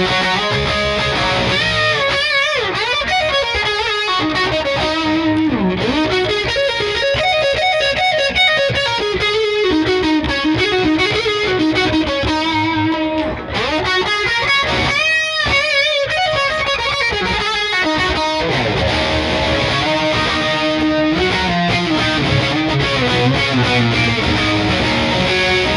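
Blue 2011 Gibson SG Standard Limited Edition electric guitar played with a distorted (overdriven) tone, a lead passage full of string bends and vibrato, showing off the guitar's sound.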